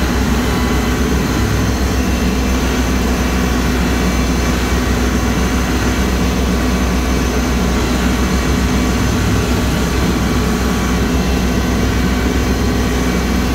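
Kubota L3302 tractor's three-cylinder diesel engine running steadily under load, driving a PTO rotary cutter through tall weeds and brush.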